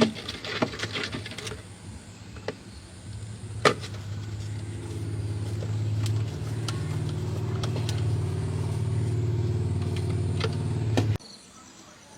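A few clicks and a sharp knock, then a motor runs with a steady hum, building a little over the first couple of seconds, and cuts off suddenly about a second before the end.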